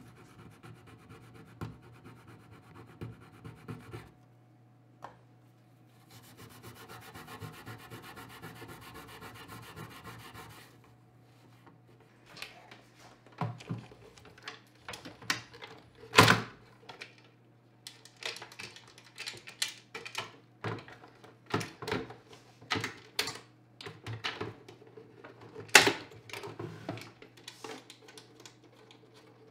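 A cloth rubs hard wax into the edge of an oak frame, a soft rubbing sound for about four seconds. A few seconds of steady scraping follow, then many sharp clicks and knocks as the turntable is handled in its wooden plinth. A low hum runs underneath.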